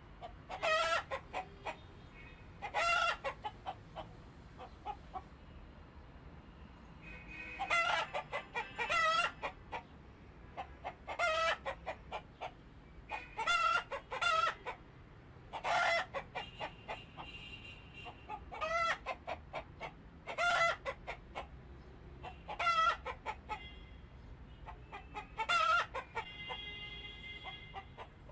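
Chickens calling in short, repeated bursts, about one every one to two seconds, with fainter high-pitched calls in between.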